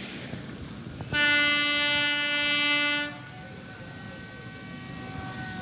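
Locomotive horn of the approaching Madhumati Express sounding one steady blast of about two seconds, starting about a second in, warning of the train's approach to the station.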